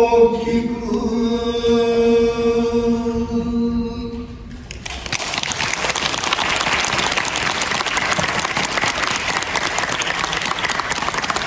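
A shigin reciter holds the long final note of a chanted Japanese poem, which ends about four and a half seconds in. The audience then breaks into steady applause.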